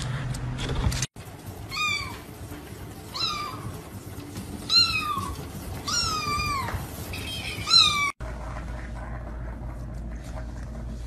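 A cat meowing five times in a row, each meow a high call that rises and then falls, the fourth one the longest and trailing downward.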